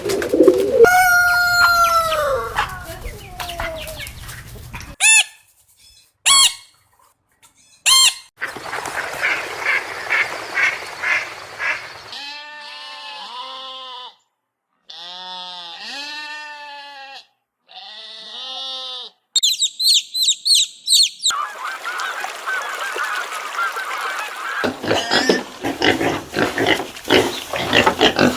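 Domestic geese and ducks calling, a run of short clips cut one after another with brief silent gaps between them; the last clip is a dense flock chorus.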